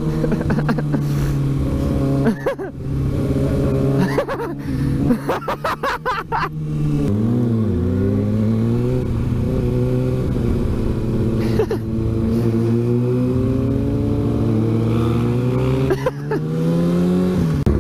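Kawasaki Ninja ZX-6R inline-four motorcycle engine running at steady cruising revs. About seven seconds in the revs fall as the bike slows, hold lower, and climb again near the end.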